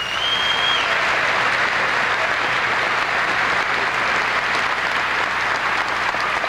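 Audience applauding, a steady dense clapping that starts at once and holds without fading. A brief high whistle rings over it in the first second.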